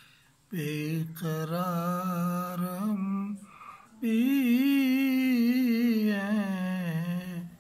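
An elderly man singing a naat unaccompanied, drawing out long wavering notes in two phrases with a short breath between them.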